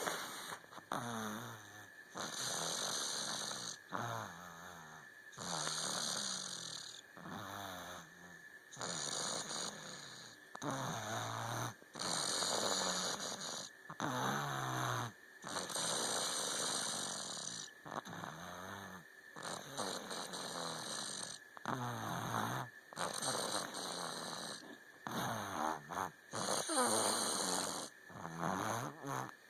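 A person snoring in a regular rhythm, one noisy snoring breath about every two to three seconds.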